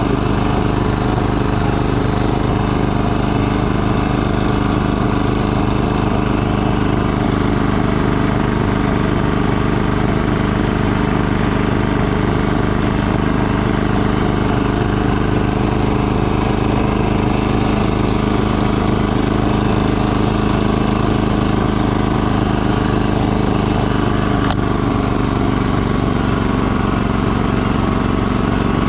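Two-stage snowblower's gas engine running steadily at working speed while it throws snow out of the chute.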